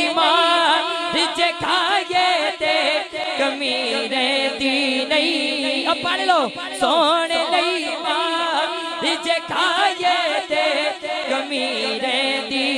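A man singing a naat into a microphone in long, wavering, ornamented phrases without words the recogniser could catch.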